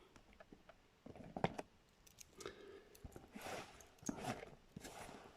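Faint handling noises: light clicks and short rustles of a cardboard Lego set box being turned over in the hands, a little louder in the middle.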